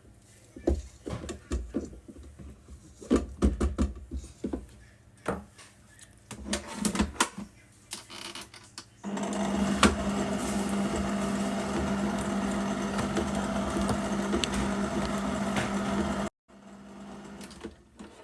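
Spatula scraping and knocking around a mixing bowl in irregular clicks. About nine seconds in, an electric mixer starts and runs steadily, beating cake batter, then cuts off suddenly.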